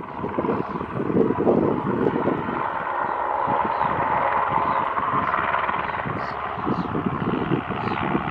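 Light helicopter hover-taxiing low: a rapid rotor beat under a steady turbine whine, the beat easing a little midway and strengthening again near the end.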